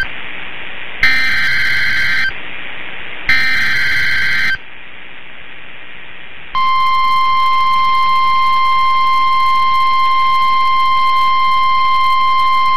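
Emergency Alert System data header: two short bursts of warbling digital screech, about a second apart. After a pause of about two seconds, the National Weather Service's single steady 1050 Hz warning alarm tone comes on and holds, announcing a severe thunderstorm warning.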